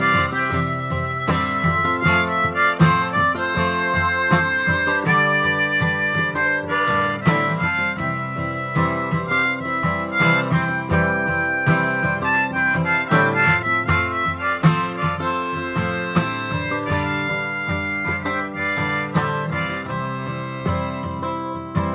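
Harmonica playing a melodic instrumental break in held, stepping notes over steadily strummed acoustic guitar.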